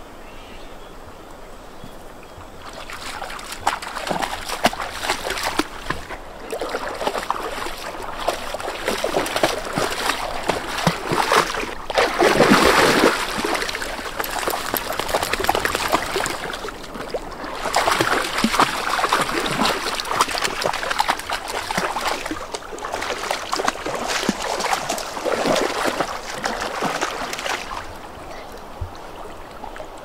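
Golden retrievers splashing through a shallow, fast-flowing stream, with the rush of the current; the splashing picks up a few seconds in and is loudest around the middle.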